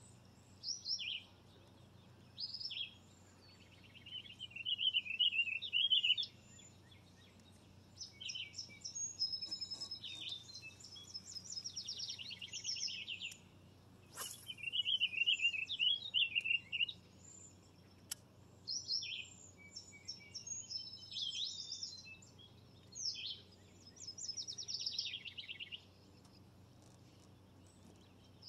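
Songbirds singing in short, trilled and warbling phrases, one burst after another with brief pauses between. A single sharp click comes about halfway through.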